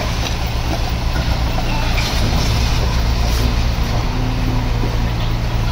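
Diesel engine of a Komatsu D21P bulldozer running steadily with a low, even drone, overlaid by a broad mechanical rattle and hiss.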